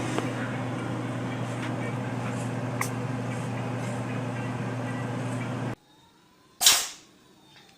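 A steady low hum and hiss runs until an abrupt cut about three-quarters of the way in. In the quiet that follows, a cat sneezes once, sharply.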